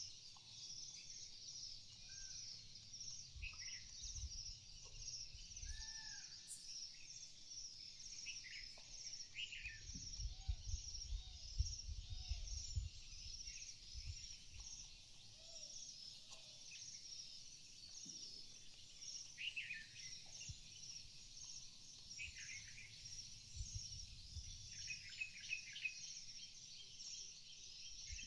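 Wild birds calling: scattered short chirps and arched whistled notes over a dense, continuous high-pitched chatter, with low rumbling gusts in the middle.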